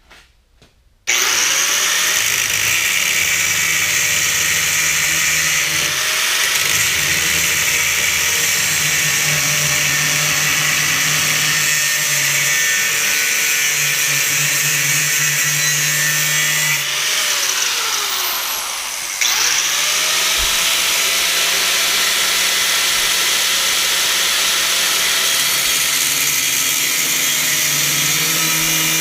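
Hand-held electric power tool running. Its motor spins up about a second in, runs steadily, winds down and stops briefly about two-thirds of the way through, then spins back up and runs on.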